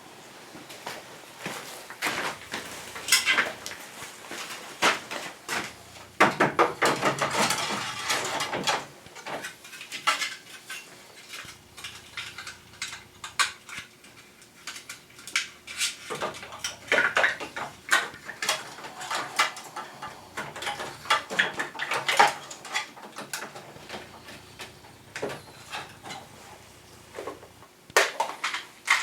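Irregular clicking and clattering of hard parts being handled while a Panasonic wall-mounted air conditioner with an auto-cleaning unit is taken apart for cleaning, with denser runs of clatter about a quarter of the way in and again past the middle.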